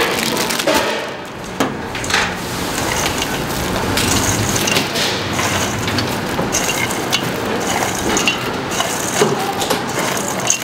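Hot oil in a deep fryer crackling and sizzling steadily as small red shrimp are tipped in from a steel bowl, with many sharp pops throughout.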